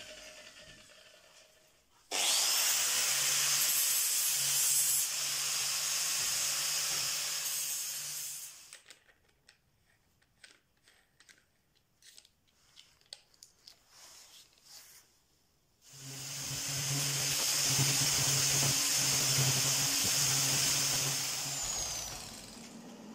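Angle grinder cutting steel square tube: the noise starts suddenly and runs steadily with a low motor hum for about six seconds. Scattered small clicks and knocks follow as a disc is changed. Then an angle grinder spins up and works steel for about six more seconds before winding down.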